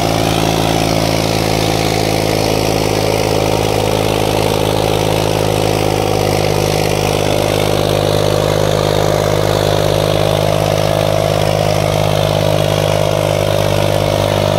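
Farmtrac 60 tractor's three-cylinder diesel engine running steadily under heavy load, dragging two disc harrows through the soil.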